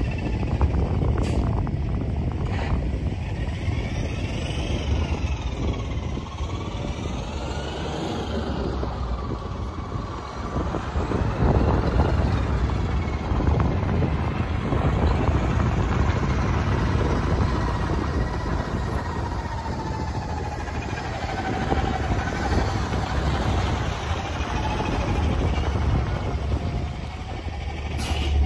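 A 2014 Kenworth T800 CNG day-cab tractor's natural-gas engine runs under load as the truck drives past. Its note rises and falls several times as it revs through the gears, then settles into a long, slowly falling pitch. Tyres crunch on gravel as it goes.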